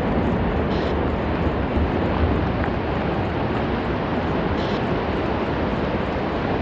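Glacier calving: a mass of ice collapsing into the lake and the churned water surging, heard as a steady, heavy rumble with a wash of noise over it.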